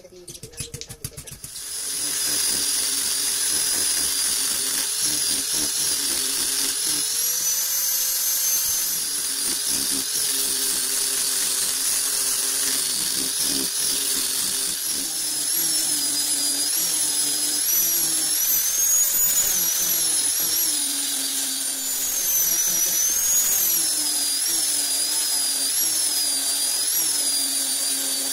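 Electric angle grinder with a sanding disc shaping a wooden knife handle. The motor starts about a second and a half in and runs with a steady high whine whose pitch dips and rises again and again as the disc is pressed into the wood and eased off.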